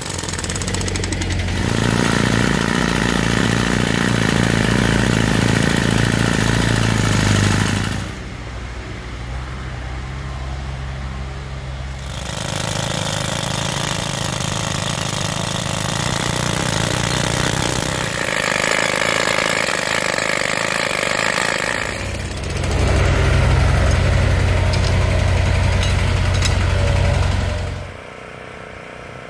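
Pneumatic rock drill hammering holes into rock, powered by a portable air compressor, alternating with a wheel loader's engine running. The noise changes abruptly several times, and is loudest where the drill runs, early on and again near the end.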